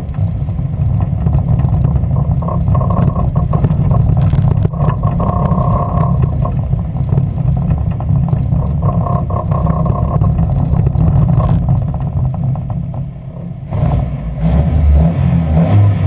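Westfield's Ford Zetec four-cylinder engine running with a misfire. It drops off briefly about three-quarters of the way through, then comes back louder.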